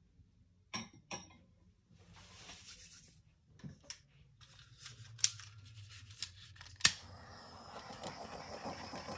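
A few clicks and knocks from handling, then a small handheld heat gun switched on with a sharp click about seven seconds in and running, its fan blowing steadily.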